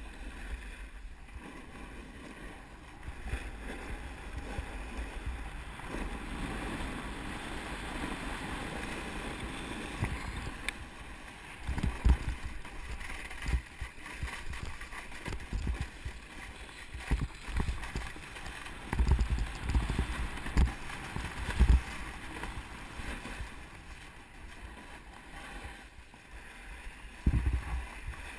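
Snowboard sliding and carving over packed snow, with wind rushing past a GoPro camera: a steady scraping hiss. Several low thumps and buffets break in from about halfway through.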